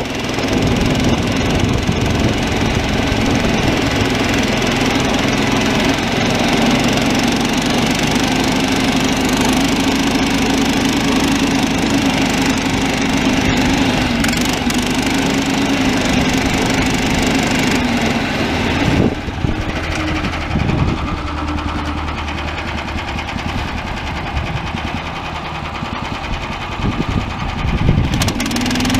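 Small gasoline engine of a Snowdog tracked snow machine running steadily under throttle as it drives over grass. About two-thirds of the way through, the note drops as the engine eases off, then it picks up again near the end.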